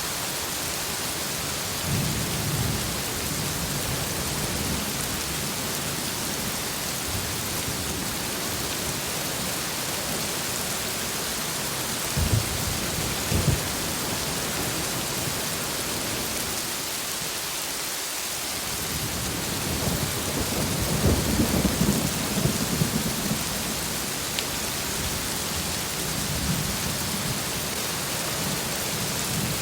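Heavy rain falling steadily, with thunder: low rumbles about two seconds in, two sharp cracks a little before halfway, and a longer rolling rumble about two-thirds of the way through.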